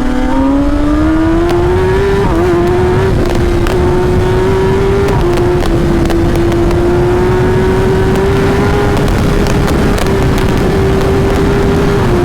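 Kawasaki ZX10R inline-four with an Akrapovic full-system exhaust running at high revs under way. Its note climbs over the first couple of seconds, then holds nearly steady with a couple of brief dips, over heavy wind noise.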